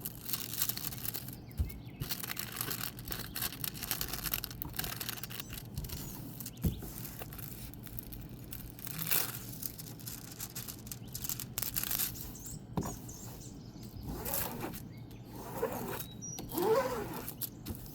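Irregular rustling and crinkling of a diamond painting canvas and its plastic cover film being handled, with sharp crackles scattered through.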